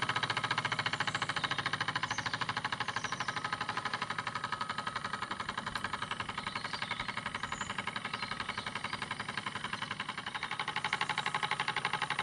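RETROL SE-02 model steam engine running steadily and free, with no load on it, on its first steam; the running gives a rapid, even beat. It is running really, really nice.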